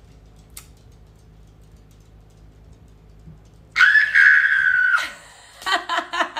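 Quiet room tone, then about four seconds in a woman's high-pitched scream held for about a second, followed near the end by short bursts of laughter.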